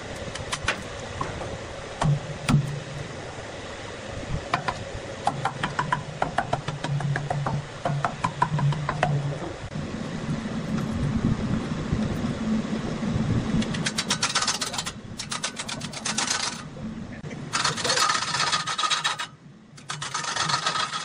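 Scattered knocks and crackles as loose bark is torn off a large log on a wood lathe. About ten seconds in the lathe starts and runs with a steady low hum. From about fourteen seconds a handheld angle grinder cuts into the spinning log in loud bursts with short pauses, roughing it round.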